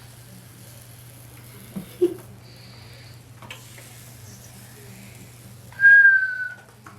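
A low steady hum with a couple of small clicks, then, about six seconds in, one short high whistling note that falls slightly in pitch.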